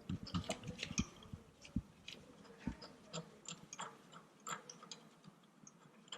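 Faint, irregular metallic clicks and taps of a hand socket ratchet working an engine torque-mount bolt loose.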